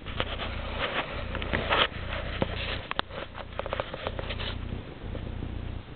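Camera handling noise as the camcorder is carried: irregular rustles and clicks with what are likely footsteps, over a steady low hum. The clicks and rustles thin out after about four and a half seconds.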